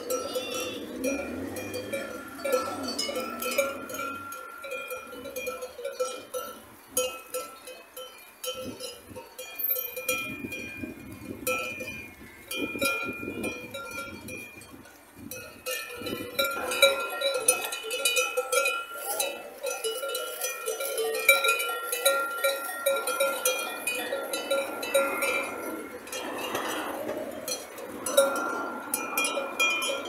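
Bells worn by a grazing flock of sheep, clanking and ringing irregularly as the animals move and feed.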